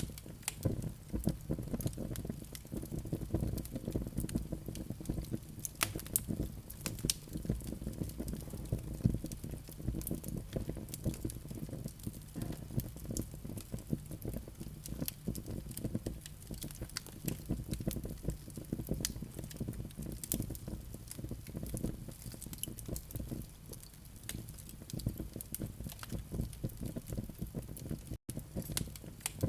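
Wood fire of flaming live coals in a fireplace, crackling: scattered sharp pops and snaps over a steady low rush of the burning fire. The sound drops out for an instant near the end.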